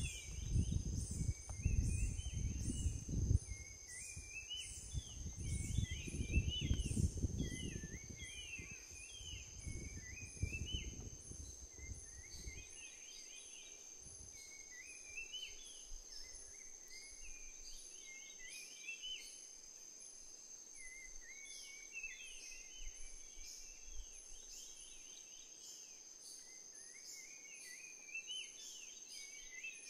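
Bushland ambience: a steady high-pitched insect drone with repeated runs of short chirping calls throughout. A low buffeting rumble on the microphone dominates the first dozen seconds, then dies away.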